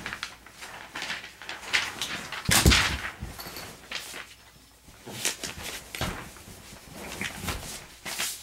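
Knocks and rustles from a paper target being handled and moved, with the loudest thump about two and a half seconds in.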